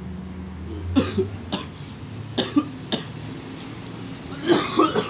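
A man coughing after exhaling a lungful of cannabis smoke from a glass pipe: a string of short, sharp coughs, with the loudest fit of several coughs near the end.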